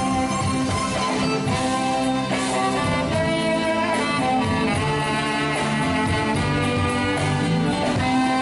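Live band playing an instrumental piece, with violin and guitar carrying the melody.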